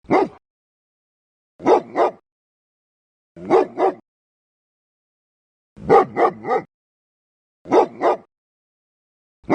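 A dog barking in short runs of two or three quick barks, one run about every two seconds.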